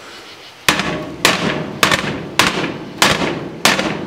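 A Red Mountain No. 8 cast iron skillet is banged repeatedly on a glass electric cooktop. About six hard strikes start under a second in and come roughly every 0.6 s, each a sharp knock with a short ring. The thick tempered glass is holding, not even chipping.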